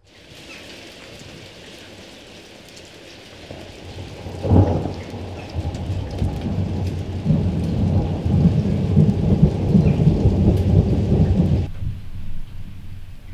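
Steady rain, with a thunderclap about four and a half seconds in followed by a long, heavy rolling rumble of thunder that cuts off suddenly near the end.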